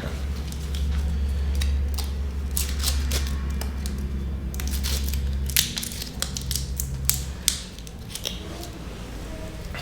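A low steady motor-like hum that weakens about five and a half seconds in and stops near seven and a half seconds, with scattered sharp clicks and taps.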